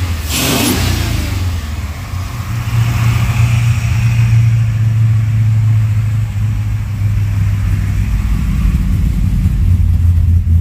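Freshly rebuilt 8.1-litre Vortec 8100 V8 running in a Chevrolet C60 truck: a brief rev about half a second in, worked by hand at the throttle body as no throttle cable is fitted yet, then a steady idle.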